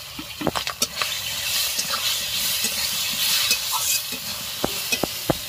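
Whole prawns sizzling in hot oil in an aluminium kadai, with a metal spatula scraping and clicking against the pan as they are stirred.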